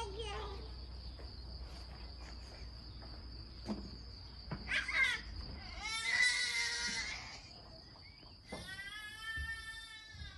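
Crickets chirring in a steady, high, unbroken tone, with a high wordless voice calling out three times, the last call drawn out near the end.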